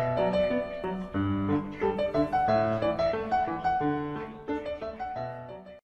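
Background piano music: a quick, busy run of notes over a bass line.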